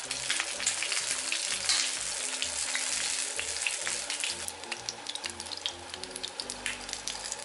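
Pancake batter with ragworms frying in oil in a non-stick pan: steady sizzling full of small crackles and pops, louder for the first few seconds and easing off after about four seconds.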